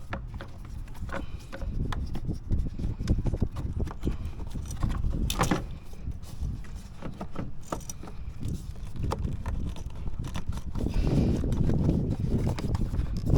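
Irregular knocks and clicks of hands and tools working in a car's engine bay, over a fluctuating low rumble, with one sharp click about halfway through.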